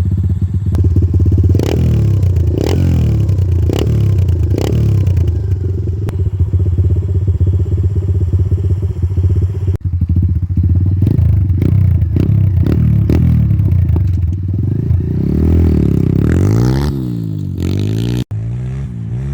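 Stomp 120R pit bike's single-cylinder four-stroke engine running, blipped up in a series of short revs about once a second at first, with more revs through the middle and its pitch swinging up and down near the end. A brief sudden break comes just before the end.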